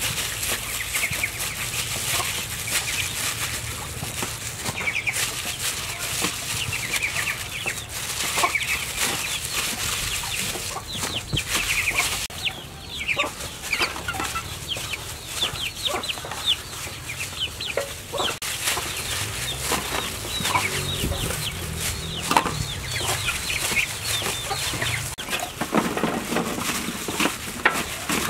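Chickens clucking, over the crinkle and rustle of a plastic bag worn as a glove while rubbing marinade into meat.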